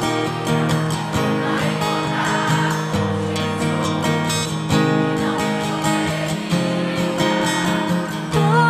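Acoustic guitar strummed in steady chords, played live as the accompaniment of a pop-rock song with no singing over it; a voice comes back in at the very end.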